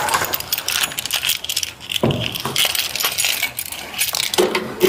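Small metal objects jingling and clinking in quick, irregular clicks close to the microphone.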